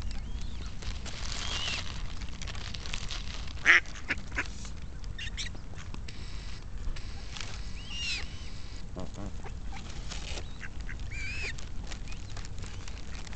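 Eurasian coots and mallards calling at close range: several high arching calls spread through the time, one short loud call about four seconds in, and duck quacks, over a low steady rumble.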